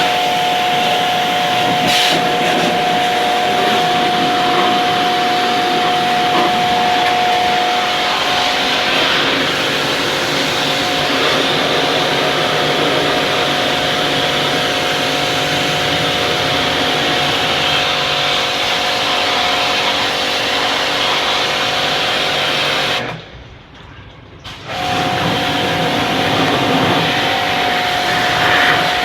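Electric motor-driven water pump or pressure washer running steadily with a whine and a spraying hiss, as used to wash an air conditioner. It cuts out for about two seconds roughly three-quarters of the way through, then starts again.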